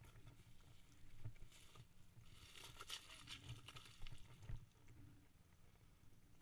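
Faint ATV engine running at low speed, with scattered knocks and rattles as the machine rolls over rocks and gravel.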